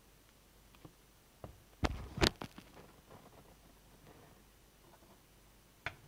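Small magnetic balls clicking against each other as they are snapped together or handled: a few light clicks, two sharper clacks about two seconds in, and another click near the end.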